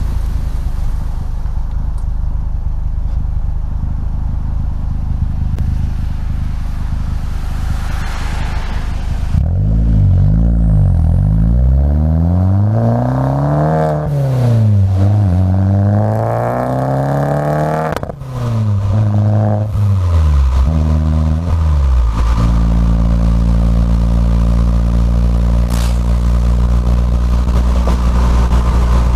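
Fiat 500 Abarth's turbocharged 1.4-litre four-cylinder, breathing through a catless downpipe and a twin-muffler cat-back exhaust, heard from inside the cabin. It runs low and steady at first. About nine seconds in it accelerates hard, rising in pitch through the gears with a sudden drop at each shift. Near the three-quarter mark it settles into a steady cruising drone.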